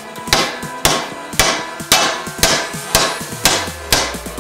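Hammer blows on an aluminium strip clamped in a bench vise, bending it over the jaw: sharp, even strikes about two a second, each with a short ring. Faint background music underneath.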